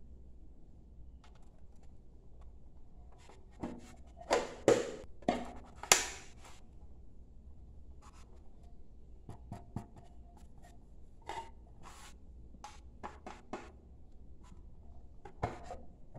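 Hands handling a book-shaped metal tea tin with a hinged lid: scattered clicks, taps and rubbing as the tin and its lid are moved, loudest in a cluster about four to six seconds in.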